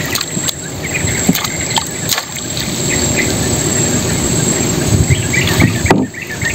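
Water splashing and dripping as a collapsible net crab trap is lowered into the river and another is hauled out, over a steady low rushing noise. A few short bird chirps come and go.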